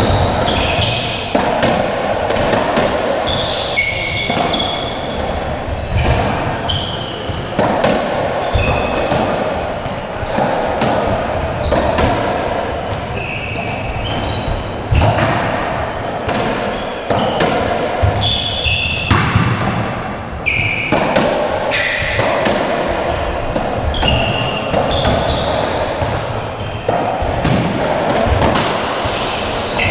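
Racketball rally: the hollow rubber ball smacked by stringed rackets and rebounding off the court walls and floor, an irregular run of sharp hits about once a second. Between the hits, short high squeaks of court shoes on the wooden floor.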